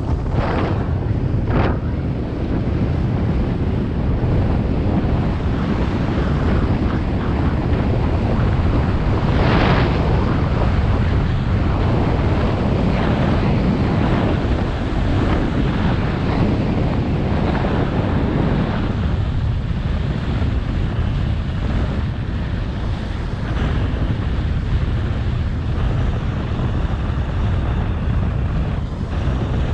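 Wind buffeting a GoPro's microphone while skiing fast down a groomed piste, a steady loud rush. The skis hiss and scrape over the packed snow, with a few brief louder scrapes of the edges in turns, near the start and about a third of the way through.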